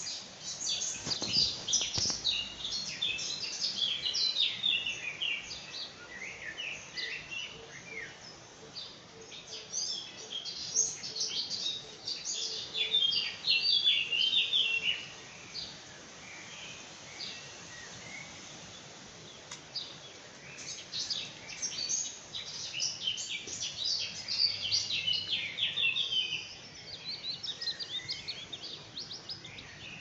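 Songbirds singing in an early-morning chorus: quick high chirps and trills in bouts of several seconds, with quieter gaps between, over a faint steady background noise.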